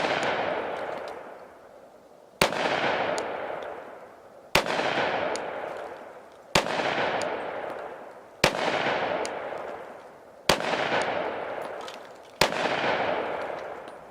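Pistol shots from a Glock 22 firing .357 SIG through a conversion barrel, six in all, about two seconds apart, each sharp crack followed by a long fading echo.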